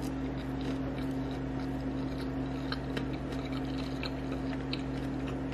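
A person chewing a mouthful of seaweed-wrapped rice with her mouth closed: faint scattered soft clicks over a steady low hum.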